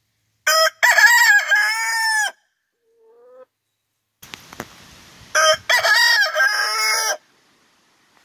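Buff Orpington rooster crowing twice, about five seconds apart. Each crow opens with a short note, then a held call of about a second and a half.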